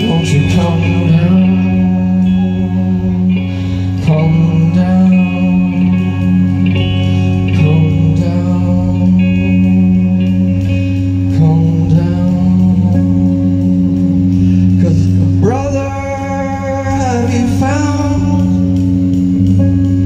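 Rock band playing live: sustained electric guitar chords over a steady bass line, with a male voice singing, most strongly about fifteen seconds in.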